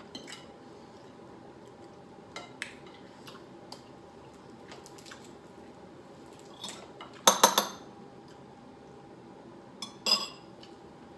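Forks and crab legs clicking and clinking against plates and the serving tray during a seafood-boil meal, in scattered light clicks. A loud clatter of several quick clinks comes about seven seconds in, and a shorter one about ten seconds in.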